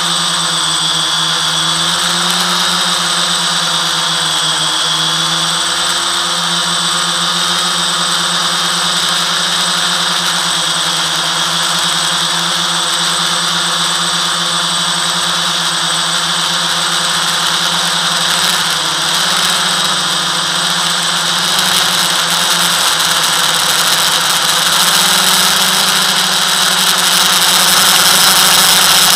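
FPV quadcopter's motors and propellers whining steadily in flight, the pitch wavering slowly with throttle and getting a little louder near the end.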